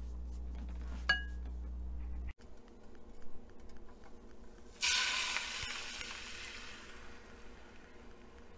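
An immersion blender runs with a steady hum as it whisks eggs and milk in a glass bowl, with a clink about a second in, and cuts off a little over two seconds in. About five seconds in, the egg-and-milk mixture hits a hot oiled frying pan with a sudden loud sizzle that slowly fades.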